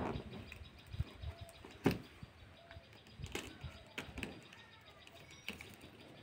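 Cardboard shipping box being handled and its packing tape cut and picked open: a string of sharp scrapes, taps and knocks, the loudest about two seconds in.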